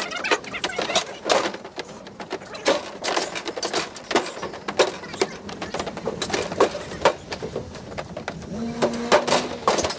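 Irregular run of knocks, clanks and rattles of appliances being moved and loaded onto a pickup truck, with a short squeak near the end.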